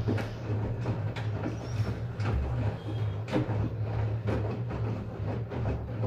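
LG Direct Drive front-loading washing machine tumbling a small load of clothes in the wash, its drum motor humming steadily under irregular soft thuds as the laundry drops and turns.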